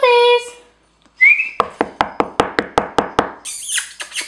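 A person calling puppies with a held, high-pitched call. A rapid, even run of clicks follows, about five a second for nearly two seconds, and a short hiss comes near the end.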